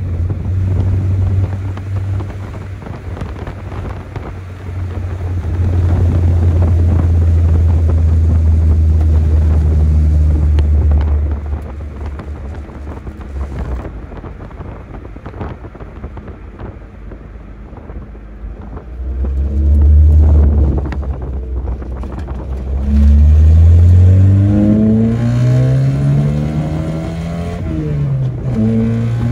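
Chevrolet S10 pickup's stock four-cylinder engine pulling hard through a manual gearbox: a steady loud drone, then several seconds of lighter running, then the engine note climbs in pitch through a gear, dipping briefly at a shift near the end.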